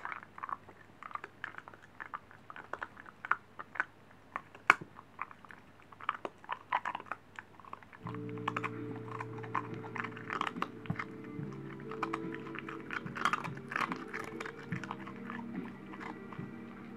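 Shiba Inu chewing a hard treat close to the microphone: irregular crisp crunches and bites throughout. Steady background music joins about eight seconds in.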